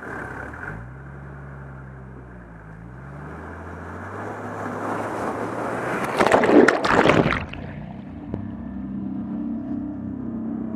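Four-wheel drive's engine revving as it drives off the bank into a deep creek crossing, water rushing around it and a loud splash of water over the bonnet about six seconds in, lasting about a second and a half. The engine then keeps pulling steadily through the water.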